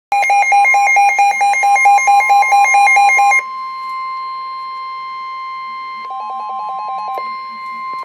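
Weather alert radio sounding a warning alarm: a steady single tone, the NOAA Weather Radio 1050 Hz warning tone, with a fast alternating beep from the radio's own alarm over it for the first three seconds or so and again for about a second near the end. The tone cuts off suddenly at the end, marking the start of a severe thunderstorm warning broadcast.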